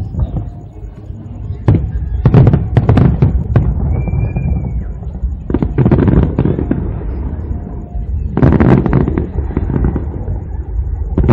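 Aerial fireworks display: volleys of shell bursts and crackling come in clusters every few seconds over a steady deep rumble.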